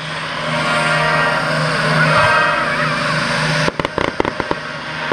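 Fireworks fired from the ground, with a quick string of sharp cracks about three and a half seconds in. Sustained orchestral music plays underneath.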